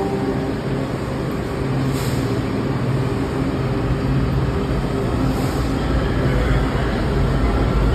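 Metro subway train standing at a platform with its doors open: a steady low hum from the train, with two short hisses of air, about two seconds and five and a half seconds in.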